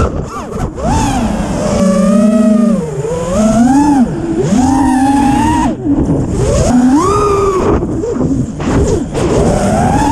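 A 5-inch FPV quadcopter's brushless motors (T-Motor F40 III 2600 Kv) and tri-blade props whining, the pitch sweeping up and down again and again as the throttle is worked through freestyle moves, with a few brief drops when the throttle is cut.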